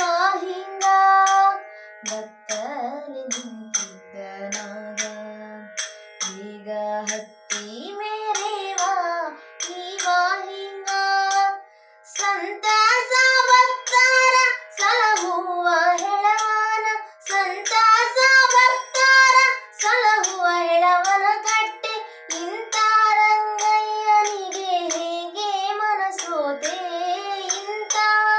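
A young woman's voice singing a Kannada devotional song in a melismatic, Carnatic-style manner. Underneath runs a steady drone from a small electronic shruti box, and small hand cymbals (tala) are struck in a steady beat.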